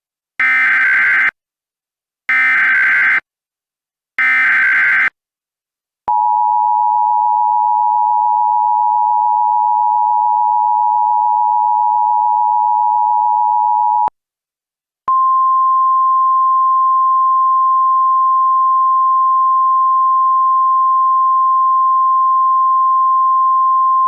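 DASDEC-style Emergency Alert System encoder output. It starts with three short bursts of SAME digital header data, each about a second long with a screechy warble. Then comes the two-tone EAS attention signal, held steady for about eight seconds, and after a one-second break the steady single-tone NOAA Weather Radio alert tone, slightly higher in pitch.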